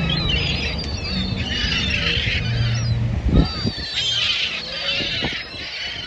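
A flock of gulls calling over one another, many short overlapping cries. A sharp low thump comes about halfway through.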